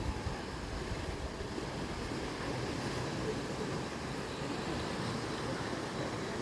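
Sea waves washing steadily against the rocky shore, a continuous surf noise, with some wind buffeting the microphone.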